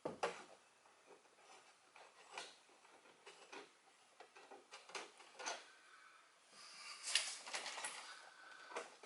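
Plastic interior trim of a Ford Mustang's console being handled and pried loose by hand: scattered light clicks and knocks, with a denser rattling scrape about seven seconds in.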